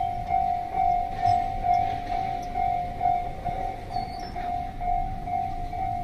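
Japanese level-crossing warning bell ringing steadily, about two strokes a second, with a low rumble underneath: the crossing is closed for an approaching train.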